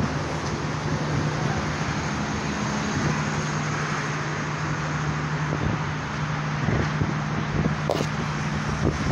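Steady road traffic noise with a constant low hum underneath. A brief knock comes near the end.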